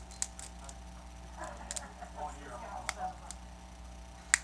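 Sharp clicks and snaps of a plastic pry tool working under a Samsung Galaxy S5's cracked screen, about half a dozen spread out with the loudest one near the end.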